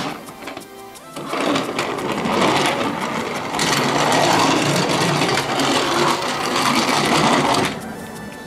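Small battery-powered toy motor running with a whirring gear noise, starting about a second in and stopping shortly before the end. A short electronic toy tune sounds just before the motor starts.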